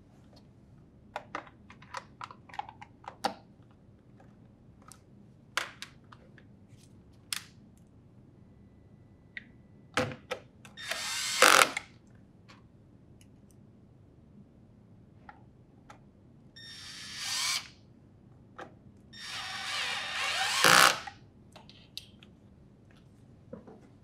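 Cordless drill driver with a Phillips bit driving in Phillips head screws to secure a refrigerator's plastic hinge cover, in three short runs that each get louder before stopping as the screw seats. Before that, light clicks and taps of the plastic cover being fitted into place.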